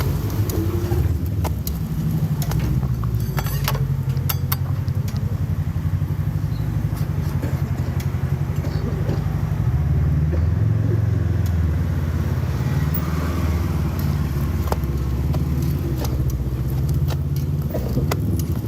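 Steady low rumble of a moving road vehicle, with scattered light clicks and knocks.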